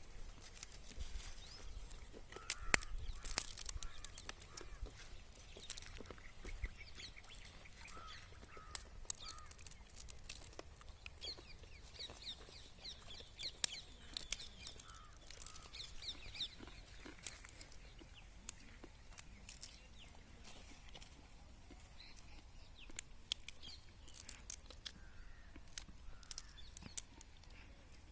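Faint calls of domestic fowl, with scattered sharp clicks and small cracks as roasted peanut shells are broken open by hand. The calls cluster in the first half.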